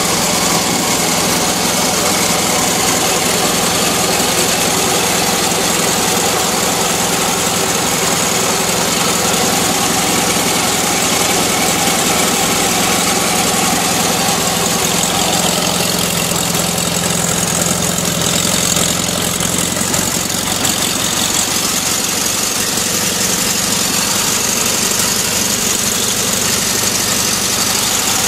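1978 VW Transporter T2's 1.6 air-cooled flat-four (boxer) engine idling steadily while still cold, shortly after a morning cold start. The idle shifts slightly about twenty seconds in.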